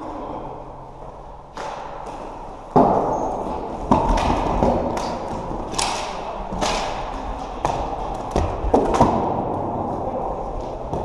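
Floorball play echoing in a sports hall: about a dozen irregular sharp knocks and thuds of sticks, the plastic ball and the rink boards, the loudest about three seconds in.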